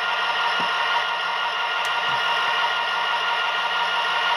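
Tsunami 2 sound decoder in an HO-scale Athearn Genesis SD60M playing diesel prime-mover sound through the model's small onboard speaker: a steady low-throttle engine drone with many held tones while the model creeps along at speed step one.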